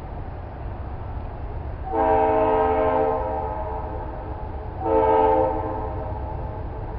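Multi-chime air horn of an approaching GE C40-8W locomotive sounding a chord: a long blast about two seconds in, then a short blast about five seconds in, over a steady low rumble of the oncoming train.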